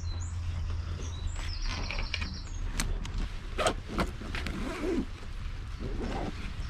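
A small bird sings a run of quick, high repeated notes in the first couple of seconds. Then come a few sharp clicks and knocks as a canvas camera bag is handled and unbuckled.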